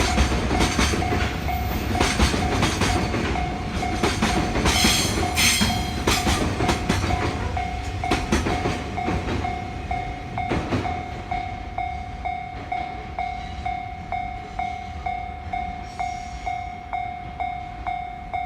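A Japanese level-crossing alarm rings with rapid, evenly repeating dings while a freight train's wagons rumble past, clacking rhythmically over the rail joints. The train noise fades over the second half, leaving the crossing bell ringing clearly.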